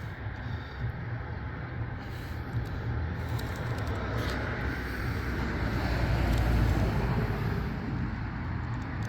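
Road traffic noise: a vehicle passing, its sound building to a peak about two-thirds of the way through and then fading, over a steady low rumble. A few small clicks of hand tools being handled show faintly.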